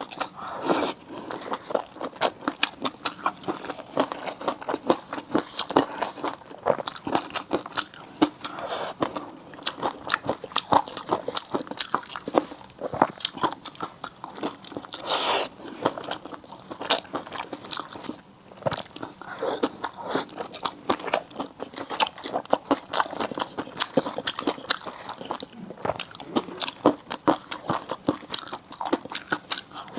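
Close-miked eating: continuous chewing and biting, a dense run of small wet clicks and mouth sounds.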